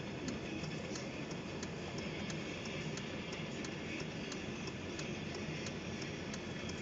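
Steady road and engine noise inside a moving work truck's cab, with a faint light ticking repeating roughly every half second to a second.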